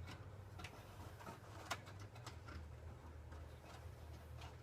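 Faint, scattered small clicks and taps of hands working plastic wiring connectors and parts at a car's headlight housing, over a low steady hum.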